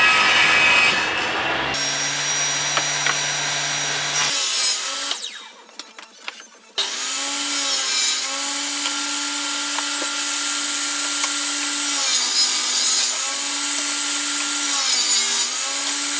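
Table saw ripping MDF: a steady blade whine over cutting noise, its pitch sagging briefly and recovering a few times as the board is pushed through. About a third of the way in the sound fades away for a couple of seconds, then starts again abruptly.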